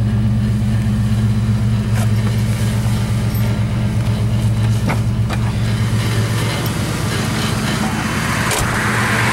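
1991 Ford Mustang GT's 5.0-litre V8 idling steadily, with a few light clicks over it.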